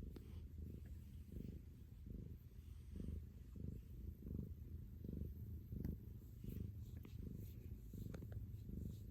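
Domestic cat purring close up, a low steady rumble that swells and fades in an even rhythm a little more than once a second, in time with its breathing.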